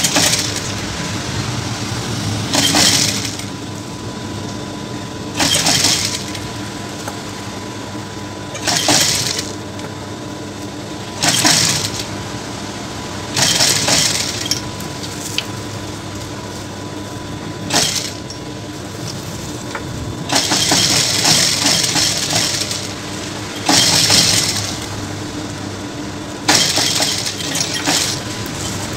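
JACK industrial sewing machine stitching lace trim onto fabric in short runs: about nine bursts of stitching, most under a second and one of about two seconds, over the steady hum of its running motor.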